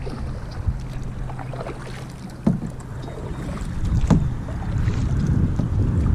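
Wind buffeting the microphone on a kayak on open water, a gusty low rumble that grows stronger in the second half. There is a steady low hum until about two and a half seconds in, and two sharp knocks about a second and a half apart.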